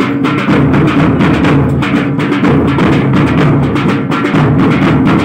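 Loud drumming in a fast, dense rhythm of strokes without a break, over a steady low musical tone.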